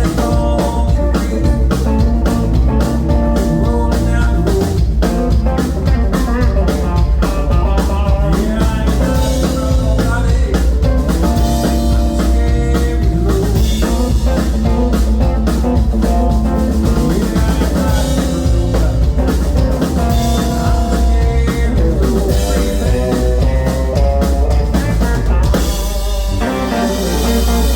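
A live band playing a rock/country number: a drum kit keeps a steady beat with rimshots under electric guitar lines, as heard through the stage sound system during a sound check.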